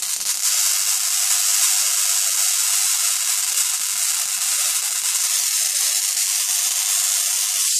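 High-voltage arcs striking from an electrode to the base pins of an oscilloscope CRT: a steady, loud, high hiss.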